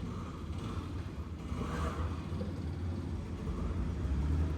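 Steady low rumble of motor vehicle engines, with faint indistinct background sounds above it.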